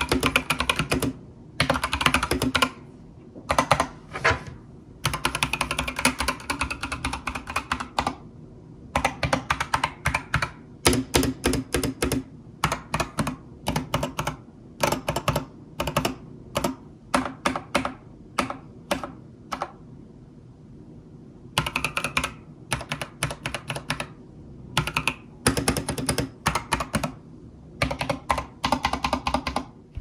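Keychron K4V2 mechanical keyboard with Gazzew Boba U4T tactile switches and XDA-profile PBT keycaps being typed on. Fast runs of keystrokes alternate with short pauses, and around the middle the keys are pressed one at a time, a couple of strokes a second.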